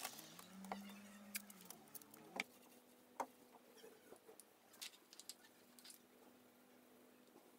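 Near silence: a faint low steady hum with a few soft, scattered clicks and taps.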